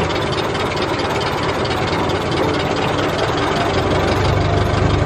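1914 Ford Model T's four-cylinder side-valve engine running steadily as the car drives along, heard from a seat inside the open car.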